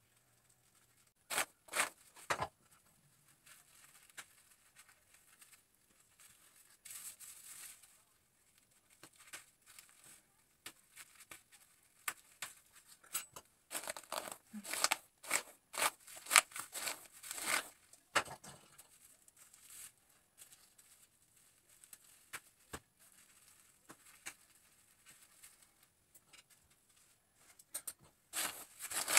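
Plastic highlighting cap crinkling and hair rustling as strands are pulled through the cap's holes and brushed with a paddle brush. The sound comes in scattered scratchy strokes, busiest around the middle, with quiet gaps between.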